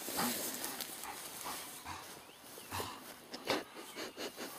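A dog moving and making irregular short noises, with a few soft knocks and one sharper knock about three and a half seconds in.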